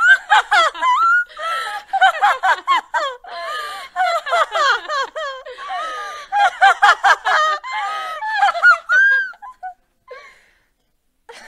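High-pitched evil cackling laugh in quick bursts of rapid, swooping 'ha-ha' sounds that breaks off about three quarters of the way through, followed by a short silence.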